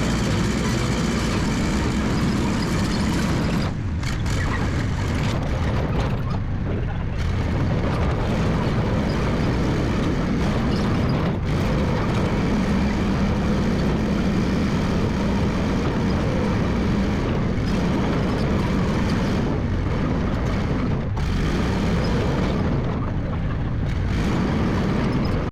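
Massey Ferguson 300 crawler dozer's engine running steadily at work, with brief dips around four, six to seven and twenty-one seconds in.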